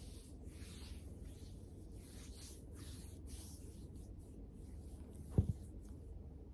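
Pen scratching across paper in short irregular strokes, as in handwriting, with one soft knock about five seconds in.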